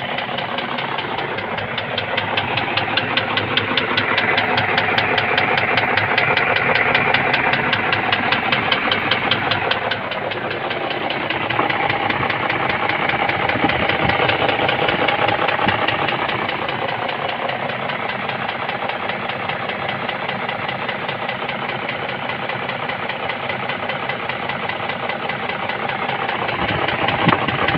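BMW M62B44 4.4-litre V8 running with a fast, steady knock from the left cylinder head: piston knock.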